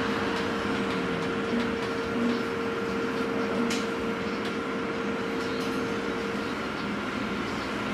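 Interior running noise of an Irizar ie bus 12 battery-electric city bus under way: a steady rolling rumble and hiss with a steady hum that stops about six and a half seconds in. A few light rattles are heard, around one and a half and three and a half seconds in.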